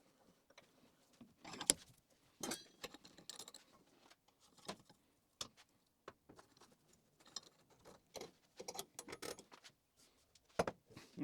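Scattered light clinks and knocks of steel stock and tooling being handled and repositioned in a bench vise, a few of them ringing faintly like struck metal.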